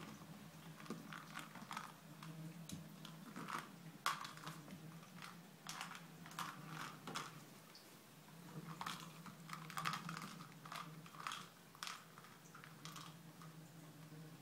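Small plastic treat ball being rolled and nudged by a rabbit across a tile floor, giving irregular clicks and knocks as it bumps along and the dried papaya treats inside rattle.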